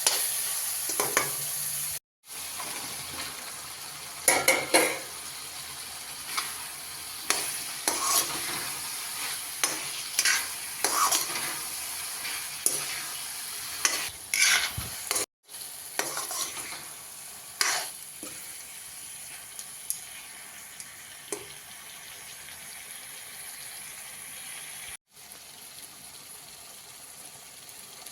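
Okra sizzling as it fries in a pan, with a spatula stirring and scraping against the pan in irregular clinks. The sound drops out briefly three times.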